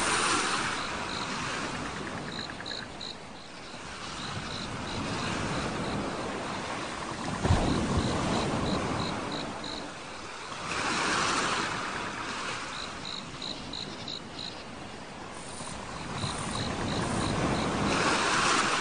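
Sea waves washing onto a shore, swelling and falling back every few seconds, with crickets chirping in short, evenly spaced high pulses.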